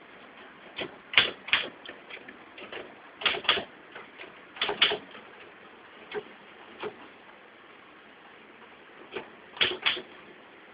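Manual typewriter keys striking one at a time in irregular clusters of two or three, with a pause of about two seconds before a last cluster near the end.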